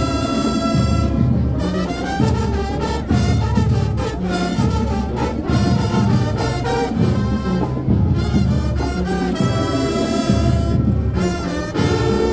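Marching band playing, brass instruments carrying the melody over drums.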